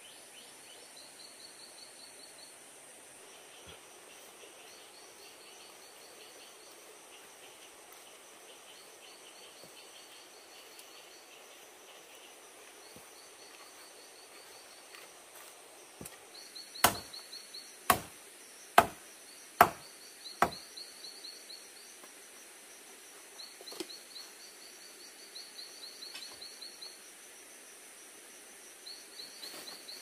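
Five sharp chopping knocks about a second apart, partway through, over steady forest background with a short high trill that repeats every few seconds.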